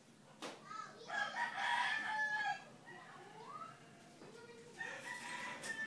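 A rooster crowing faintly: one drawn-out crow about a second in, with a few shorter calls after it.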